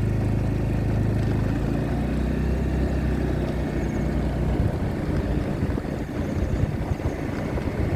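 A vehicle's engine running steadily with a low hum, turning rougher and more uneven from about five seconds in.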